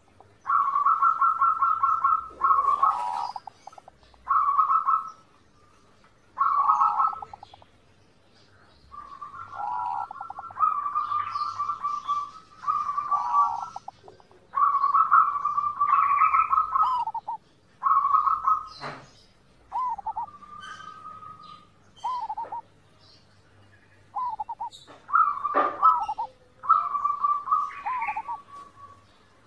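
Zebra dove (perkutut) singing: phrase after phrase of rapid, rolling coos, each one to two seconds long, with short pauses between.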